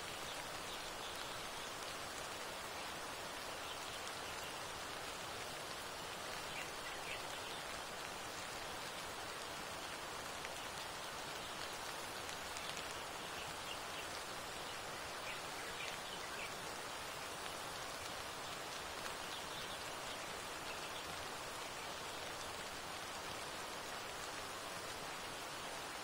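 Steady, even hiss of rain blended with the boiling and steam venting of a geothermal hot spring, with a few faint bird chirps now and then.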